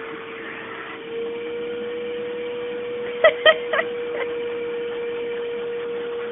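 Vacuum cleaner running with a steady whine while it is run over a cat's fur. A quick cluster of sharp clicks comes about three seconds in.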